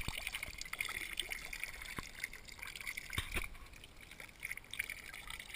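Thin stream of water from a metal spout trickling into a wooden trough and over a hand, with scattered drops ticking against the GoPro's waterproof housing.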